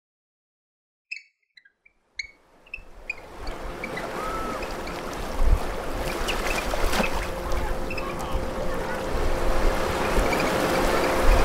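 A few short high chirps, then from about two seconds in a steady rush of ocean surf fades in and holds: beach ambience laid under a daydream of a tropical beach.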